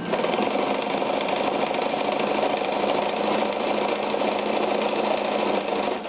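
Ideal 601 sewing machine running at speed: a fast, even mechanical clatter that starts abruptly and stops just before the end.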